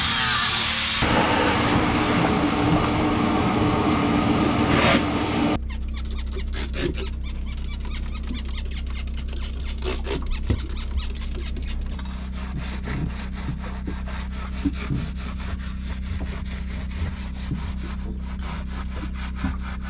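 A brush scrubbing the fiberglass bilge of a boat's battery compartment in quick, repeated back-and-forth strokes, over a steady low hum. For the first few seconds a louder, even hissing noise covers it, then stops abruptly.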